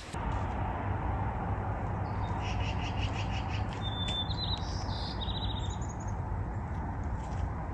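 Songbirds calling: a series of short repeated chirps followed by a few quick trills, over a steady outdoor rushing noise.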